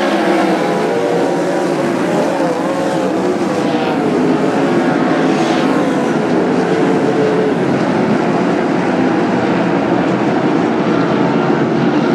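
Several winged dirt-track sprint cars' V8 engines racing at full throttle, loud, their pitches rising and falling as they lap the oval.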